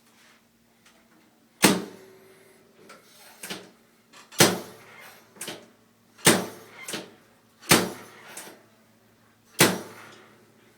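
Chiropractic drop table knocking down five times, roughly every two seconds, each a sharp loud knock as a padded section drops under an adjustment thrust, with softer clicks between the knocks.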